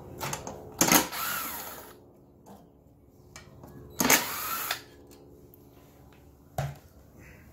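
Cordless Craftsman drill-driver backing out the two small bolts that hold a lawnmower's ignition coil: two short runs of the motor about three seconds apart, each with a whine that rises and falls. A light knock comes near the end.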